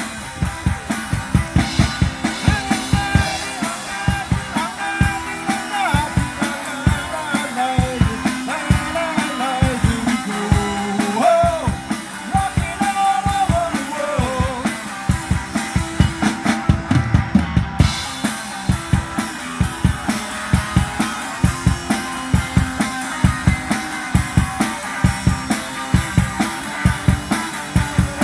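Drum-led music: a drum kit keeps a steady, fast beat of bass drum and snare, with a wavering melody over it.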